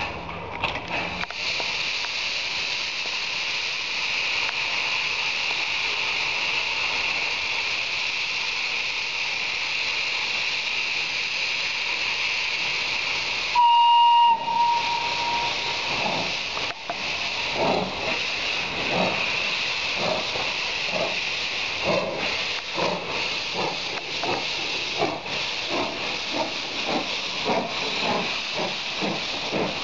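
FS Class 640 steam locomotive venting steam with a steady hiss, from its open cylinder drain cocks. About halfway comes one short, high whistle blast, the loudest sound, followed by a run of uneven exhaust chuffs over the hiss.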